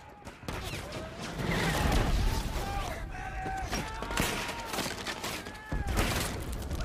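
War-film battle soundtrack: dense rifle and machine-gun fire with heavy explosions, the loudest blast about two seconds in and another near the end, under men's shouting.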